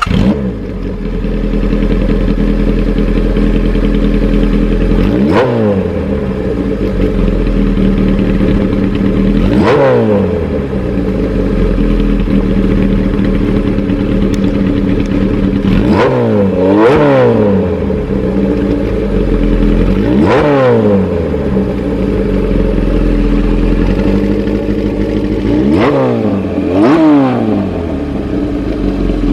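Kawasaki Z2's air-cooled inline-four engine, breathing through a Moriwaki Monster ('monaka') racing exhaust, idling loud and steady, with about seven sharp throttle blips that rev it up and drop straight back, two of them in quick pairs.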